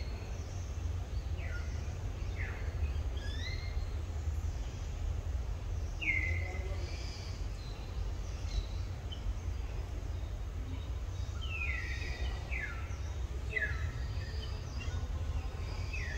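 Birds calling with short chirps that fall in pitch, scattered through and coming more often near the end, over a steady low rumble.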